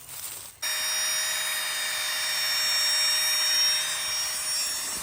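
A small electric motor and fan starting abruptly about half a second in and running steadily with a whine and a rush of air.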